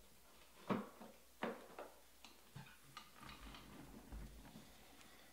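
Trading cards being handled and slipped into plastic card sleeves: two sharp taps less than a second apart, then lighter clicks and faint plastic rustling.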